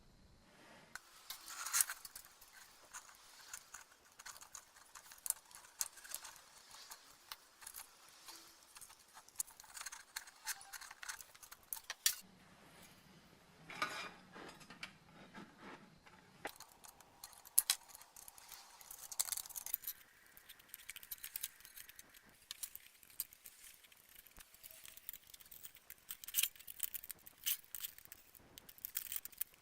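Hand work on small metal parts: irregular clinks and scrapes of metal against metal, in short clusters with brief pauses between them.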